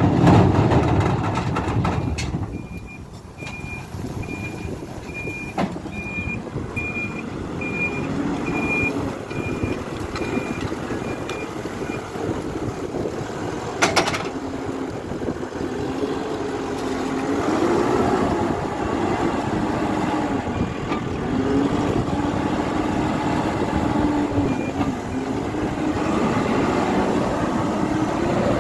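Hidromek 102S backhoe loader's diesel engine working under load, its pitch rising and falling, with a reversing alarm beeping regularly, nearly two beeps a second, for about ten seconds from a couple of seconds in. A single sharp clack comes about halfway through.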